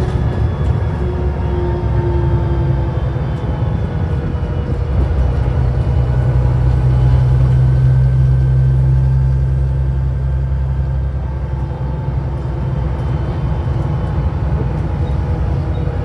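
Volvo B7TL double-decker bus's six-cylinder diesel engine and driveline running under way, heard from inside the bus over road rumble. The low drone builds to its loudest about eight seconds in, then eases off, with a faint whine rising and falling above it.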